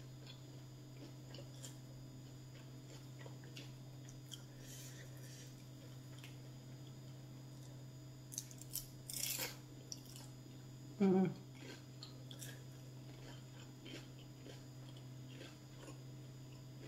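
Quiet close-up chewing and crunching of a crispy fried spring roll, with a cluster of crisp crackles about eight to nine seconds in. A short hummed "mmm" follows a little later, over a steady low hum.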